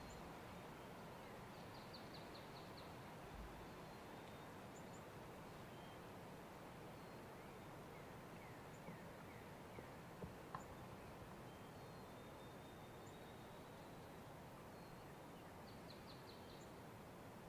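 Near silence outdoors: a faint steady hiss with distant songbirds, one giving a short rapid trill about two seconds in and again near the end, plus a few faint chirps between.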